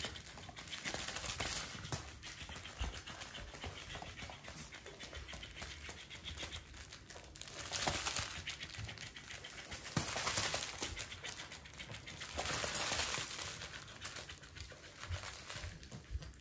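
A Boston terrier scuffling with a plush electric flopping-fish toy on a floor mat: rustling and scraping as the dog paws, mouths and drags the toy, rising in several louder bursts, with scattered light knocks.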